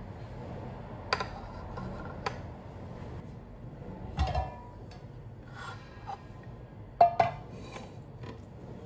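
Kitchenware set down on a stone countertop: a few light knocks, a dull thud about four seconds in as a plate of grated carrots is put down, and two sharp knocks, the loudest, about seven seconds in as a frying pan is set down.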